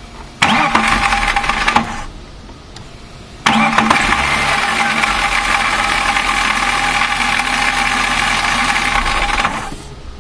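BMW M3 starter motor whining and grinding in two bursts, the first about a second and a half long and the second about six seconds, each at a steady pitch over a low engine rumble. The noise comes from a broken bearing on the starter motor's dog gear.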